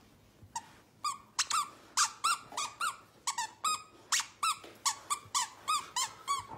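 A squeaker inside a plush dog toy squeaking over and over as a dog chews it: a rapid run of short, high squeaks, about three a second, starting about a second in.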